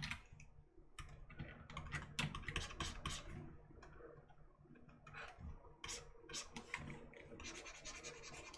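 Faint, scattered taps and clicks of a computer keyboard and mouse, then about two seconds of steady scratching near the end from a stylus stroking across a drawing tablet.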